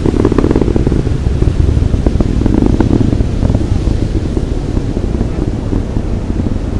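Distant low rumble of a SpaceX Falcon 9's nine Merlin first-stage engines during ascent, with a crackling texture that is strongest in the first three and a half seconds or so.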